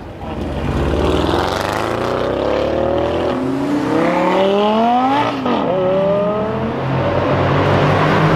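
Brabus 850 6.0 Biturbo CLS Shooting Brake's twin-turbo V8 accelerating hard, climbing in pitch through the gears with upshifts about three and five seconds in.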